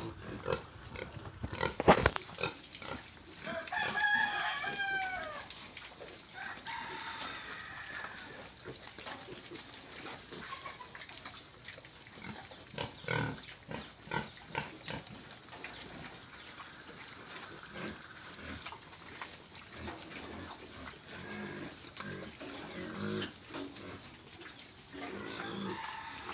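F1 Large White × Landrace crossbred piglets grunting, with one high squeal about four seconds in that falls in pitch.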